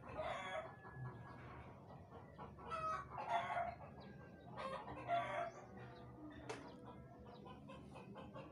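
Chickens clucking: three or four short pitched calls spaced a second or two apart.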